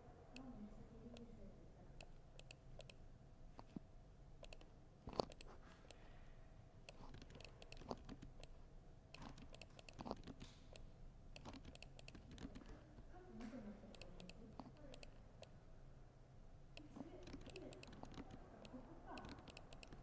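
Laptop keyboard typing: faint, irregular key clicks, with one sharper knock about five seconds in.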